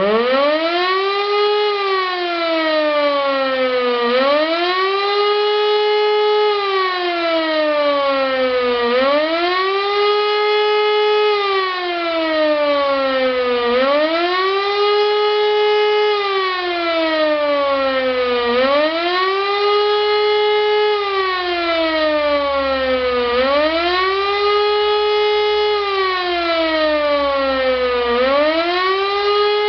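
E57 motor siren sounding the German "Warnung" warning signal in a siren test: it spins up from silence to a loud wailing tone, then repeatedly holds, falls and rises again, about once every four and a half seconds.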